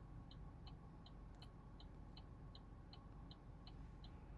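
Near silence, with a faint short high chirp repeating evenly two to three times a second over a faint steady hum.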